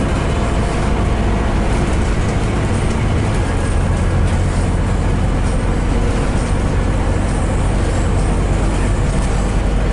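Scania DC9 diesel engine of a Scania N230UD double-decker bus running steadily on the move, heard from the upper deck as a low drone mixed with road noise and light body rattles.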